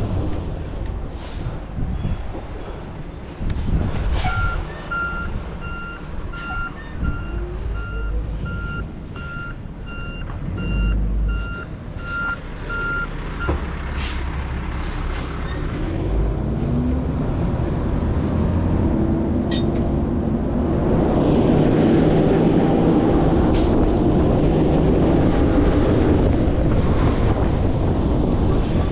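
Garbage truck backing up, its reversing alarm beeping steadily for about nine seconds, with short hisses of the air brakes. In the second half the truck's engine speeds up and runs louder.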